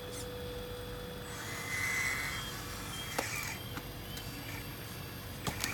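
1/14-scale RC Volvo EC360 excavator working its boom and bucket in sand: the motor and hydraulic pump whine, swelling loudest about two seconds in as the loaded boom lifts. Sharp clicks come about three seconds in and again near the end.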